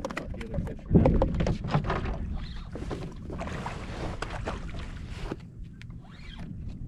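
Wind buffeting the microphone over a low rumble, with scattered knocks and clatter of gear on a small boat's deck. The loudest is a single thump about a second in.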